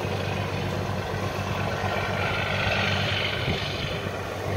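Boat engine running with a steady low hum, over a steady rush of water.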